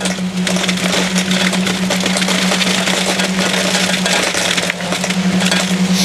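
Concrete vibrator running in freshly placed concrete inside an insulated concrete form wall: a steady buzzing hum under dense gritty crackling. It is consolidating the concrete, driving out air so it flows in under a window buck.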